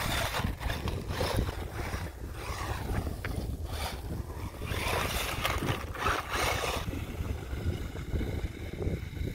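Wind rumbling on the microphone, with two spells of a WLtoys 12427/12428 RC buggy's electric motor and tyres running over brick paving, the first at the start and the second about five seconds in.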